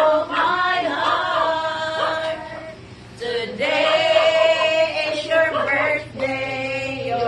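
A small group, mostly women's voices, singing together in held notes, with a brief pause about three seconds in before the singing resumes.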